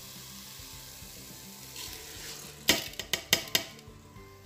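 Tomato paste sizzling steadily in a stainless steel pot; about two and a half seconds in, uncooked rice is tipped in from a plastic bowl with a short burst of loud rattling and several sharp knocks.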